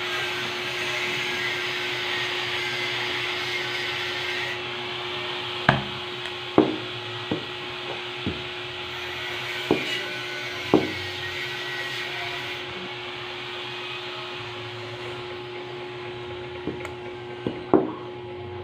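Steady machine noise with a constant hum, and a scattering of sharp knocks, about nine in all, mostly between six and eleven seconds in and a few more near the end.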